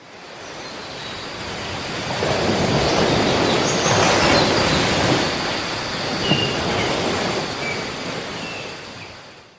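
A steady rushing noise with no clear pitch that fades in, grows loudest in the middle and fades out again. A few faint, short high whistles sound in its second half.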